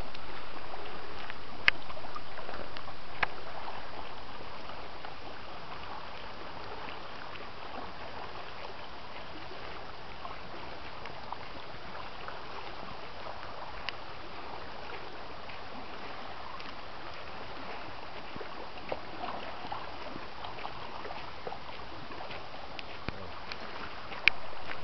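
Steady wash and lapping of seawater against a rocky shore, louder for the first few seconds and then even, with a few faint clicks.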